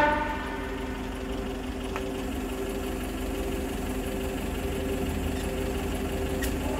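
Tow truck's engine idling steadily, an even hum with a constant pitch.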